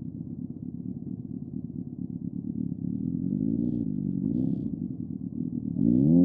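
Motorcycle engine approaching and getting louder, its pitch rising and falling as it revs, with a sudden jump in loudness near the end.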